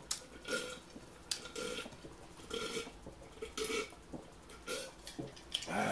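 Close-miked chewing of breaded fish sticks, with wet mouth smacks and crunches coming about once a second.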